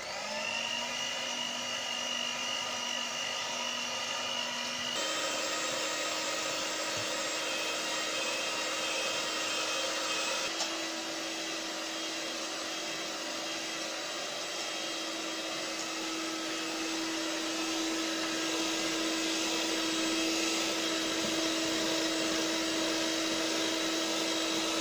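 Electric hand mixer's motor whining as its twin wire beaters whisk eggs and caster sugar in a steel bowl. It spins up at the start, then runs steadily, its pitch jumping abruptly to a new note about five seconds in and again about ten seconds in.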